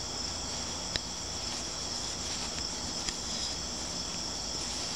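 Steady high-pitched insect chorus, with two faint clicks, one about a second in and one about three seconds in.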